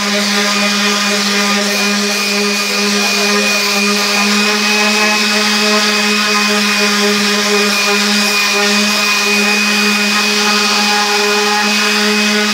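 Handheld electric orbital sander running steadily while sanding a wooden board: a constant, even motor hum and whine.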